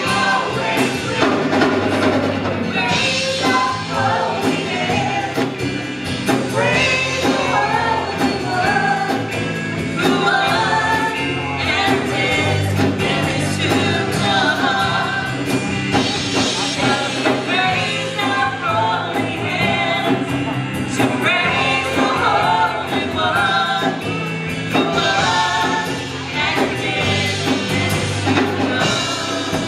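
Live praise band playing a worship song: voices singing over strummed acoustic guitar, electric guitar, congas and drum kit.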